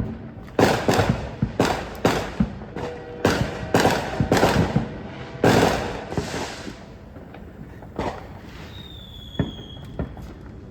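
Backyard consumer fireworks going off: about a dozen sharp bangs in quick succession over the first six seconds, then a few fainter scattered pops. A short falling whistle sounds near the end.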